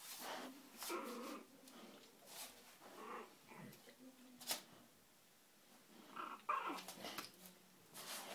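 A bulldog and a chihuahua puppy at play, making short, irregular growls and whimpers close to the microphone, with a sharp click about four and a half seconds in.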